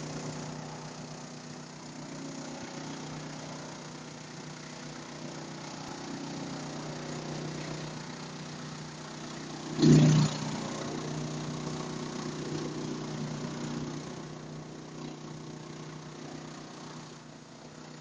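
Electric-motor-driven wood chipper running steadily with a low, even hum; one brief, much louder burst comes about halfway through.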